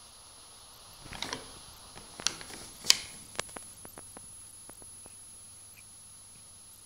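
A few light clicks and taps, the sharpest about three seconds in and a quick run of smaller ones after it, over faint hiss and a steady high-pitched whine.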